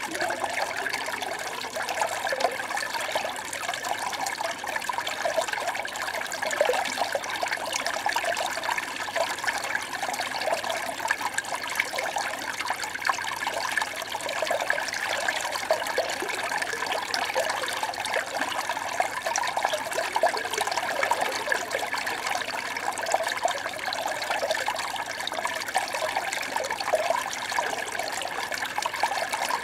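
Small stream babbling and trickling steadily, with a constant flicker of small gurgles.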